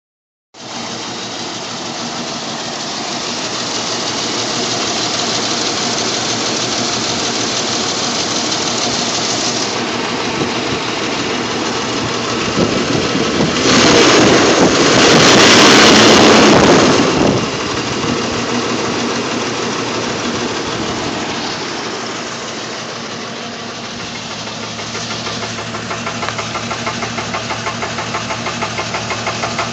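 Jeep engine running with a misfire, which the owner puts down to a worn compression ring. It gets much louder for about three seconds halfway through, and near the end a regular uneven pulse shows in the running.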